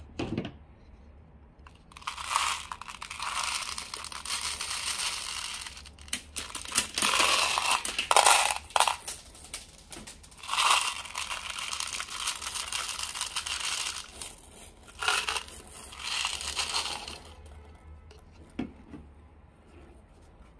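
Orbeez water beads poured from a glass bowl into a rubber balloon through its stretched neck: a noisy, rustling hiss in several pours. It is loudest about eight seconds in and stops a few seconds before the end.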